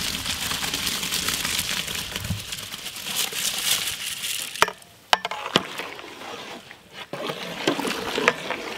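Soaked rice poured from a tray into a large aluminium pot of boiling water: a dense hissing patter of grains and water for about four seconds. A few sharp metal knocks follow, then quieter splashing and scraping as a ladle stirs the boiling pot.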